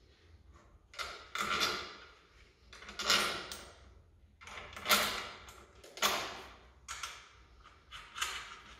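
A motorcycle exhaust and tools being handled and fitted, heard as irregular short mechanical scrapes and knocks, about seven in all.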